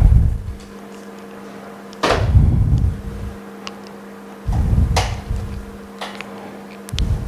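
Steady electric machine hum, with four dull low thumps of handling as an LCD screen and its tester are picked up and set down on the bench. The longest thump comes about two seconds in.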